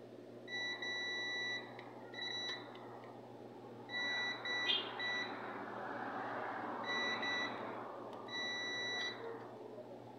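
Digital multimeter's continuity beeper sounding in about seven uneven beeps, some brief and some up to a second long, as its probes are touched to points on a circuit board. Each beep signals a low-resistance path, as when hunting for a short circuit. A small click about halfway through.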